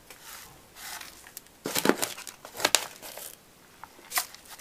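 Plastic bag of vermiculite crinkling and rustling in about six short bursts as it is handled.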